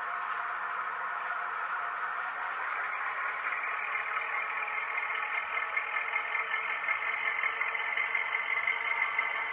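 Sound decoder in a model Class 05 diesel shunter playing the recorded engine of the real D2595 through the model's small loudspeaker. It is a clattering diesel engine with no bass. About three seconds in it rises in pitch as it revs up, and it pulses more strongly toward the end.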